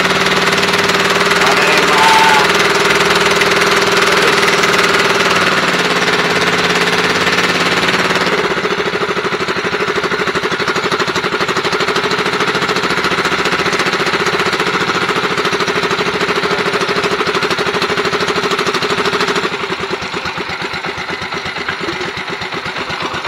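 Small boat engine running with a rapid knocking beat, easing back about twenty seconds in as it slows.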